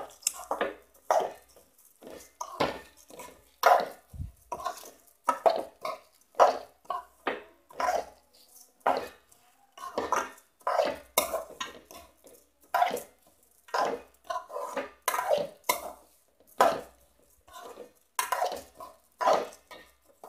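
A spatula stirring long-grain rice as it fries in ghee in a metal pot: irregular scraping strokes against the pot, about one or two a second, with the grains rustling.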